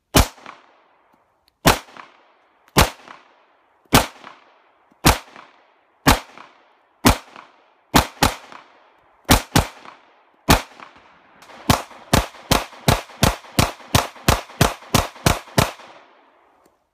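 Glock 23 pistol firing .40 S&W 165-grain flat-point rounds. About a dozen single shots come roughly a second apart, two of them in quick pairs, then a fast string of about fourteen shots at roughly three a second. Each shot trails off in a short echo.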